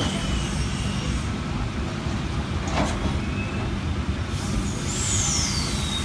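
A stationary double-deck V set electric train humming steadily at the platform, with a thin, falling high-pitched whistle at the start and another near the end, and a single click a little before halfway.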